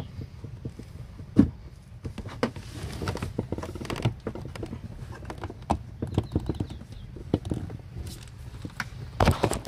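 Irregular taps, clicks and knocks of objects being handled, with a louder cluster of knocks near the end, over a low steady hum.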